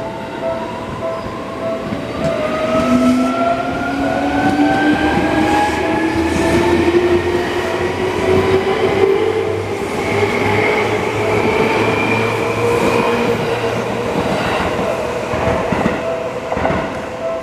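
Japanese level-crossing warning bell ringing steadily as an electric commuter train passes. The train's motors whine, rising in pitch as it accelerates. Wheels clack over rail joints near the end.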